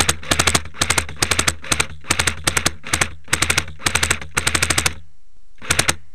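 Airsoft gun firing on full auto in short rapid bursts of a few shots each, about two bursts a second. The firing stops about five seconds in and starts again with two more bursts near the end.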